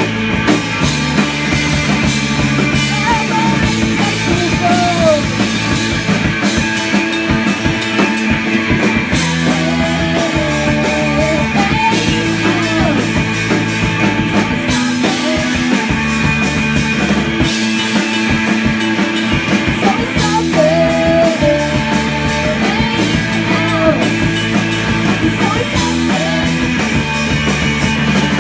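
A live rock band playing: electric guitar, electric bass and drum kit, with a voice singing over it at times.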